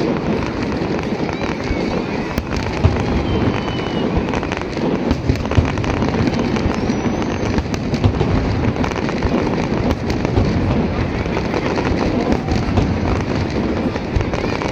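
New Year fireworks display going off continuously: a dense run of bangs and crackling bursts, many overlapping, with sharper reports every second or so.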